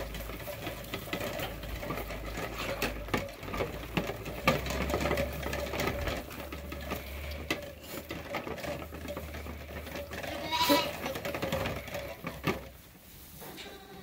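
Lambs sucking milk from the rubber nipples of a PVC-pipe bar feeder, a busy run of small wet clicks and slurps. A sheep bleats once, about two-thirds of the way through.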